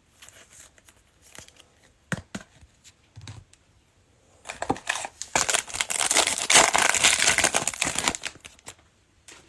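Foil trading-card pack being torn open and its wrapper crinkled: a few light handling clicks first, then a dense stretch of crinkling and tearing lasting about four seconds from midway through.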